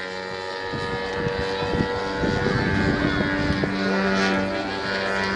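Engine of a radio-controlled aerobatic model plane running steadily in flight, a sustained drone with slight changes in pitch around the middle.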